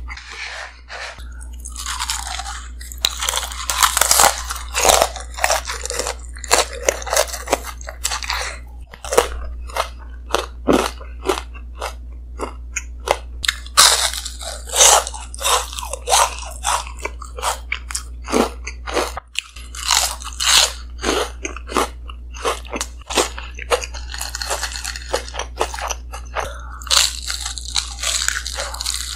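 Close-miked crunching and chewing of breadcrumb-coated fried fish: crisp crackling bites followed by wet chewing, in repeated bouts, over a steady low hum.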